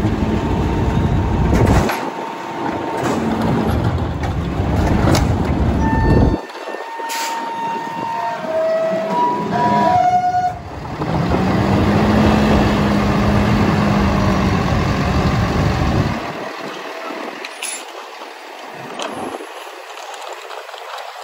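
Autocar ACMD Loadmaster rear-loader garbage truck running heavy and loud while a cart is tipped into the hopper, then several short high squealing tones and a quick run of clicks. The diesel then pulls the truck away, loud for about five seconds before fading as it drives off.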